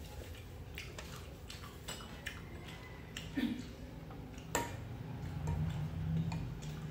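Scattered light clicks and taps of a metal spoon against ceramic bowls while eating, over a low steady hum.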